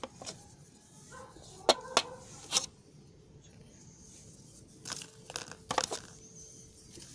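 Bar of soap being cut, giving a few crisp snaps and crackles in two clusters, one in the first half and another after the middle.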